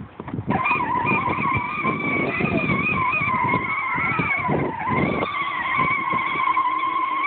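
A small ride-on ATV sets off about half a second in and drives steadily, giving a continuous, slightly wavering high whine over a rough rumble from the wheels.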